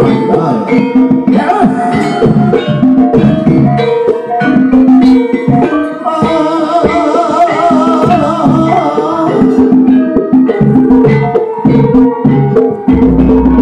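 Banyumasan gamelan ensemble playing: bronze keyed metallophones struck in a steady interlocking pattern. A woman singer's wavering voice comes in from about six to nine seconds in, and a deep low stroke sounds near the end.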